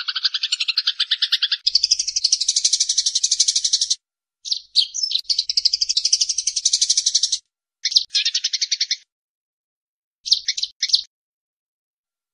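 Eurasian tree sparrows giving fast, rattling chatter calls, the agitated chatter of sparrows fighting. The chatter comes in bursts of one to three seconds with short silent gaps, the last bursts shorter and choppier.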